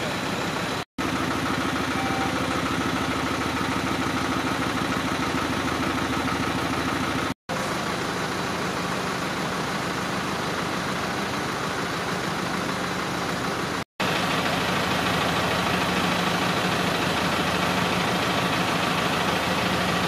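Fire engine's motor idling steadily, heard in several short stretches joined by abrupt cuts.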